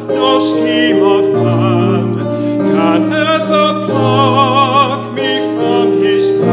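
A man singing a hymn verse with a wide vibrato, accompanied by sustained chords on an electric keyboard.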